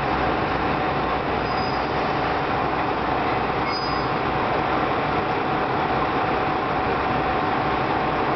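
A JR Kyushu KiHa 125 diesel railcar coming to a stop and standing with its diesel engine running, a steady rumble with a constant hum. Two brief, faint high squeals from the brakes about a second and a half and four seconds in.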